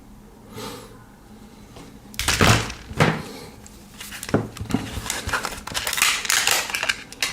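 Hard plastic blister packaging being pried open and handled, giving a quick run of clicks, knocks and crackles. It starts about two seconds in, with the loudest knocks around two and a half and three seconds.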